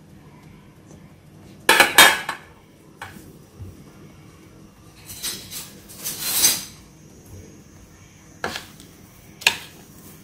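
Metal spoon knocking and scraping against a ceramic bowl and plate while chicken is coated in batter and breadcrumbs: a few sharp clinks, the loudest about two seconds in, a longer scrape in the middle, and two more clinks near the end.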